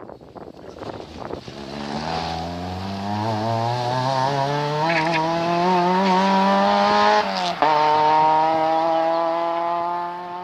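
Rally car engine at full throttle on a special stage, its note climbing steadily as the car accelerates. About seven and a half seconds in there is a quick upshift: the pitch drops with a brief cut in the sound, then the engine pulls hard in the next gear.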